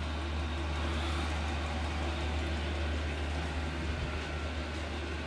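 Steady low background hum with an even hiss, unchanging throughout; no distinct event.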